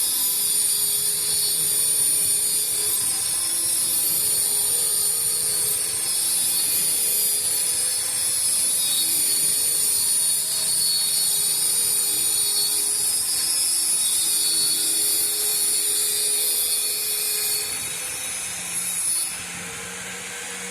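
Electric power tool cutting a laminate (mica) sheet, running with a steady high-pitched whine. It dies down near the end.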